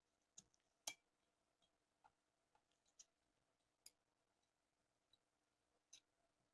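Faint, scattered sharp clicks and light taps, about half a dozen at uneven intervals, the loudest about a second in, as small parts of a pistol are handled.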